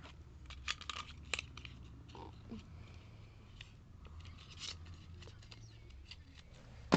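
Scattered light clicks and rustles of fingers handling a small black plastic lipstick case.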